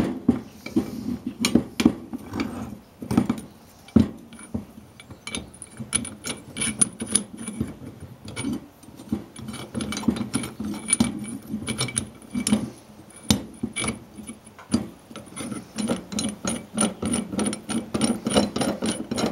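A steel C-clamp being handled and fitted over a brake caliper, with sharp metal clicks, knocks and scrapes. Toward the end its screw is turned by hand in a quick run of clicks and rubbing, pressing the brake piston into its bore.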